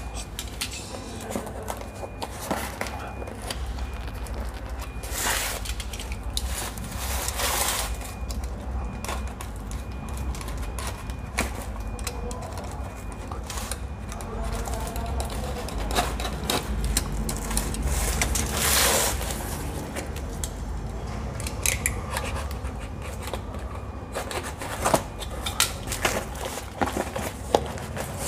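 A box cutter slitting packing tape and cardboard on a long parcel, then the cardboard being torn and pulled open: repeated scraping and ripping strokes, the longest about two-thirds of the way in, among handling clicks and crinkles over a low steady hum.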